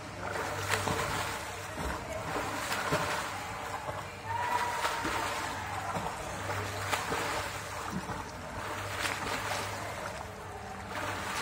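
Water splashing from a swimmer doing butterfly stroke, one splash with each arm stroke about every second and a half.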